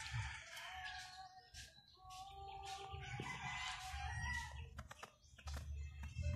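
A rooster crowing, fairly faint, in long drawn-out calls, with a few sharp clicks about five seconds in.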